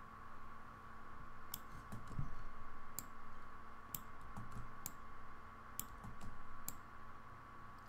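Sharp, separate clicks, about eight of them at uneven spacing, from input at the computer as the snowflake brush is stamped onto a digital drawing. A steady faint whine runs underneath.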